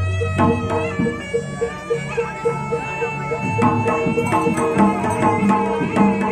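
Live Javanese traditional music accompanying a masked folk dance: hand-drum strokes, a gong-chime note pulsing about four times a second, and a held, bending reedy wind melody.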